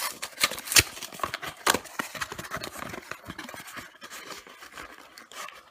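Small cardboard box of a chocolate surprise egg being torn open and handled: a steady run of rustling, tearing and clicking, with two sharp snaps about a second and two seconds in.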